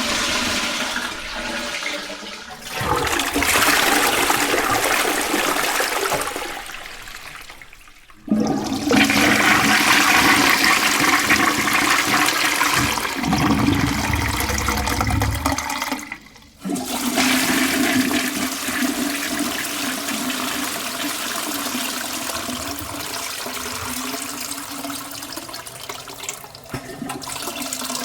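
A run of separate toilet flushes, about four recordings of different toilets back to back. Each starts suddenly with a loud rush of water and then fades as the water drains away.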